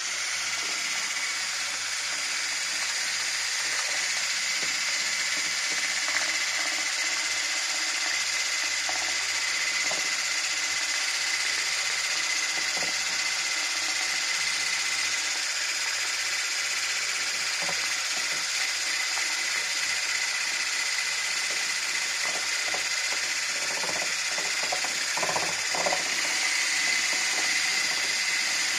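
Handheld electric mixer with a whisk attachment running steadily in a glass bowl of thick cooked pudding, a constant motor whine, with a few louder clatters of the whisk against the bowl in the second half.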